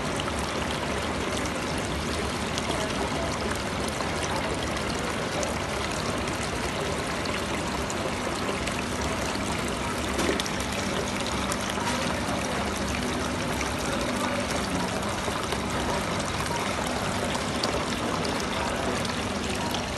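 Water from a decorative tabletop rock fountain pouring in a thin sheet from its spout into the basin below, a steady splashing trickle. A faint steady hum sits underneath.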